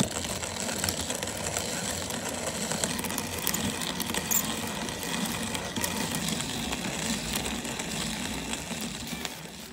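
Kalita wooden hand coffee mill grinding coffee beans as its crank is turned, a steady grinding that starts suddenly and stops just before the end.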